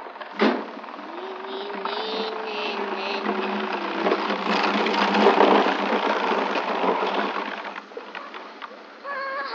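Hard plastic wheels of a Big Wheel-style low-rider tricycle rumbling and rattling over pavement, growing louder as it rolls closer and dropping away near the end as it comes to a stop. There is a sharp knock about half a second in.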